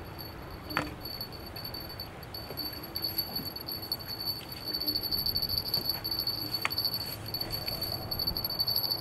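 A fishing reel is wound in while a bream is played on a feeder rod, with two sharp clicks and a steady high pulsing whine throughout. Low wind rumble sits on the microphone.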